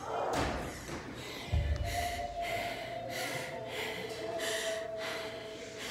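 A person panting hard, with quick, noisy breaths in and out about every half second, winded after an all-out workout.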